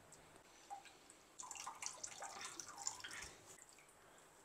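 Faint dripping and trickling of water into a bowl as a cloth bundle of rinsed curdled milk (chhena) is twisted and squeezed, busiest from about a second and a half in until about three seconds in.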